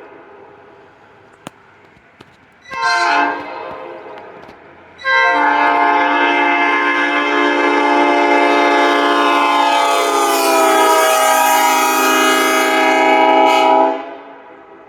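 Locomotive multi-chime air horn: a short blast about three seconds in, then a long blast of about nine seconds whose chord drops in pitch partway through, each dying away slowly after it stops.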